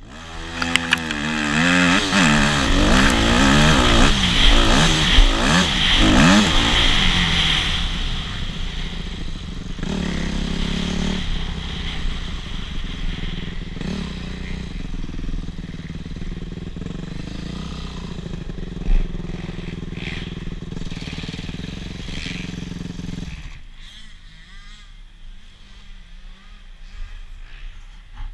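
Enduro motorcycle engine revving up and down repeatedly for the first several seconds, then running more quietly and steadily, dropping away sharply about 23 seconds in.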